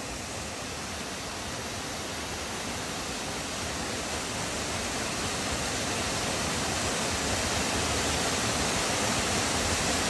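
Small waterfall pouring into a rock pool: a steady rush of falling water that slowly grows louder.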